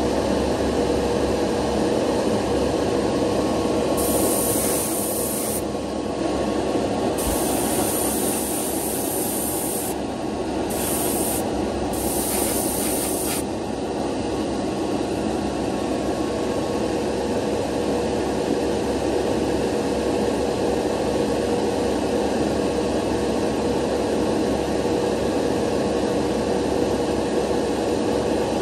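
Spray booth extraction fan running steadily with a constant hum, overlaid by four short hissing bursts of paint being sprayed between about four and thirteen seconds in.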